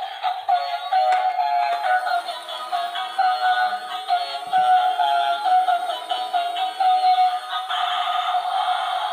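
Battery-powered bump-and-go toy car playing its built-in electronic tune: a thin melody of short, quickly changing notes. Near the end it turns into a busier, noisier sound.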